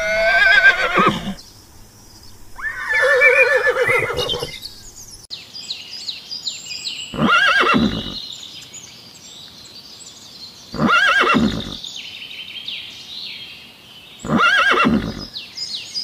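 Zebras calling: five loud, horse-like calls, two close together at the start and three more spaced about three and a half seconds apart. A faint high chirping runs between the later calls.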